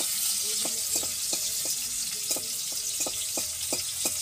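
Food sizzling in hot oil in a wok, with a metal spatula repeatedly scraping and knocking against the pan as it is stirred, a few strokes a second.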